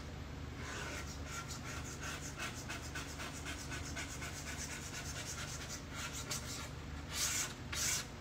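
Sponge scrub pad rubbed back and forth on a wooden surface, about four strokes a second, scrubbing off old dried coffee residue softened with a prep cleaner. Two harder, louder strokes near the end, over a steady low hum.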